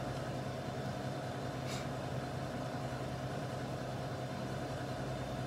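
A steady low mechanical hum with a fainter higher tone over it, and one faint tick about two seconds in.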